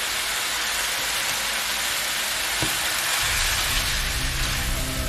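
Chopped tomatoes and diced vegetables sizzling steadily in a hot frying pan. Low music notes come in about three seconds in.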